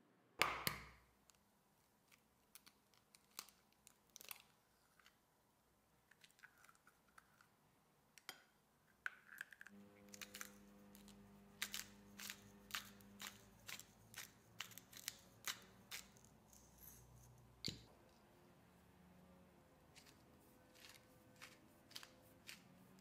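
A single sharp knock about half a second in, then scattered small clicks. From about ten seconds a run of crisp clicks and crunches, roughly two a second, as salt and then pepper are ground and sprinkled over a raw egg on bread.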